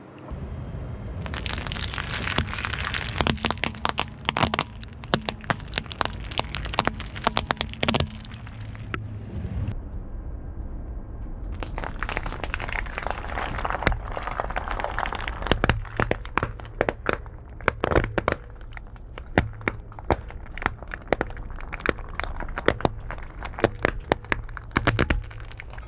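Car tyre rolling over a heap of paintballs, the shells cracking and popping in quick, irregular succession over a steady low rumble. The cracking thins out at about nine seconds and starts again at about twelve seconds, during a second pass over the pile.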